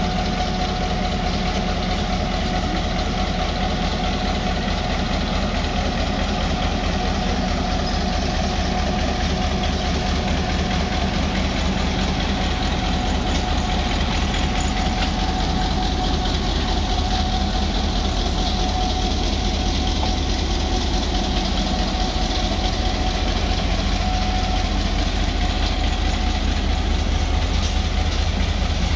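Diesel locomotive engine running with a steady low throb and a constant whine, a little louder in the second half.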